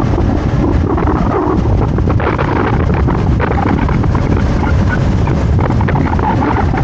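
Wind buffeting the microphone on a moving scooter, with the scooter's engine running underneath in a loud, steady rumble.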